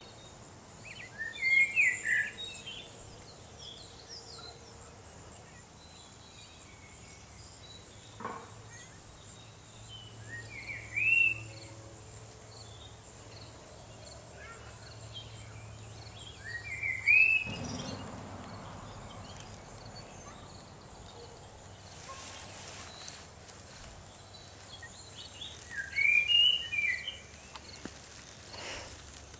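Outdoor ambience with small birds chirping in the background, and four louder short calls that rise and fall in pitch, spaced several seconds apart.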